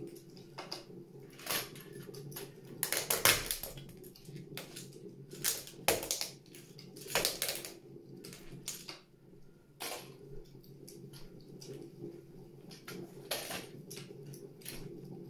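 Plastic toy train cars and track cracking and crunching under stiletto heels, in scattered sharp snaps, the loudest about three seconds in. A steady low hum runs underneath.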